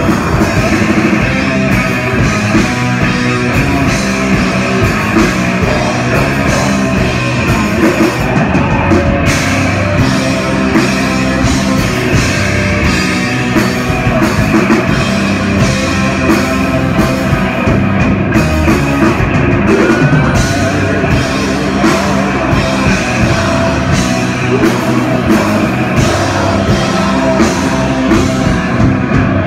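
Heavy metal band playing live: electric guitar, bass guitar and drum kit at full volume, with the vocalist singing into the microphone.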